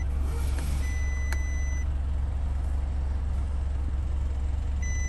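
Isuzu NPR diesel engine idling with a steady low drone, heard from inside the cab. Over it a dashboard beep sounds twice, each a single steady tone about a second long, once about a second in and again near the end, as the DPF regen switch is held to bring up the regeneration request.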